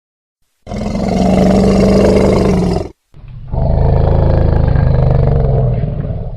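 Elephant calling twice: a low-pitched call of about two seconds, a brief break, then a longer call that fades toward the end.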